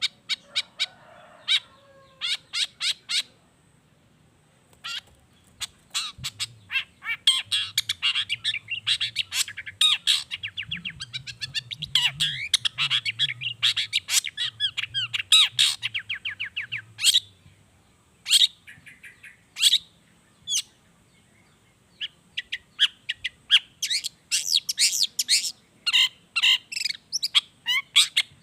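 Long-tailed shrike (cendet) singing a fast, chattering song of sharp high notes and mimicked calls. It comes in runs with short pauses between them, densest about a third of the way in and again near the end.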